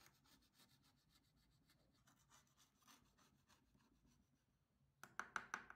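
Faint scratching of a hand-held scraper's metal blade on a glass plate, scraping dried bee venom crystals off it, with a few louder scrape strokes near the end.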